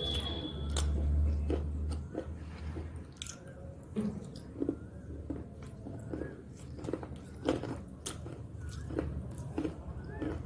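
Someone biting and chewing crunchy snack sticks close to the microphone: irregular crisp crunches, about one or two a second, with soft wet chewing between them.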